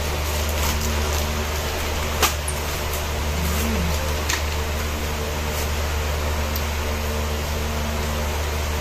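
Steady low room hum with hiss, with one sharp click about two seconds in and a softer click about two seconds later.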